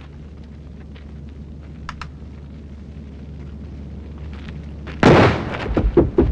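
Execution volley of rifle fire: one loud sudden volley about five seconds in, followed at once by a few more sharp shots and their echo, over a low steady hum.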